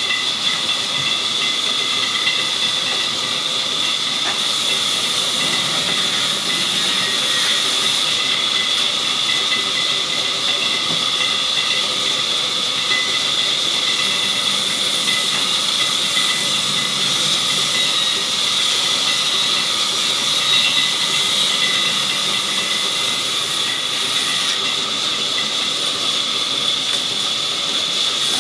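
Sawmill saw cutting through a log: a steady hiss with a high-pitched whine.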